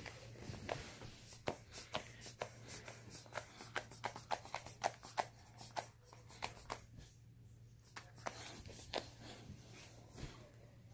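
Irregular sharp clicks and crinkling from a dog toy being chewed and handled, with no squeak: the toy's squeaker is dead.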